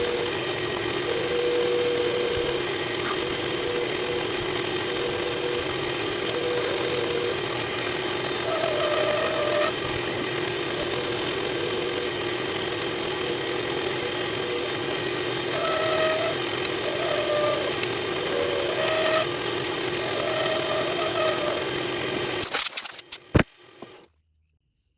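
Wood lathe running steadily as a pen blank spins on it and is worked, with short shifting tones where the work is touched. Near the end come a few sharp clicks, and the sound cuts off suddenly.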